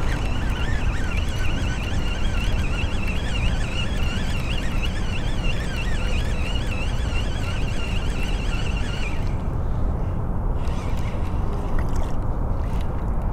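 Steady low rumble of wind on the microphone, heard over the kayak on open water. Over it, a high warbling tone wavers rapidly up and down, then stops about nine seconds in.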